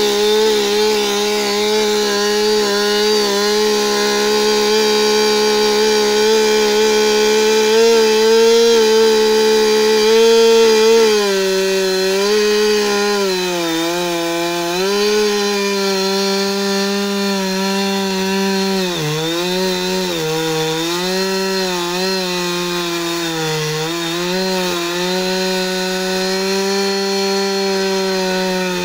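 Husqvarna 359 two-stroke chainsaw running at high revs while cutting through a log. Its engine note holds steady at first, then from about twelve seconds in sags and recovers several times as the chain bites into the wood.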